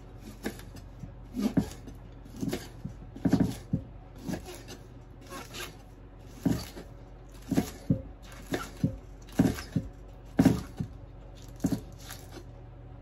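Kitchen knife slicing wild onion stalks on a wooden cutting board: irregular knocks as the blade goes through to the board, about one or two a second, sometimes in quick pairs.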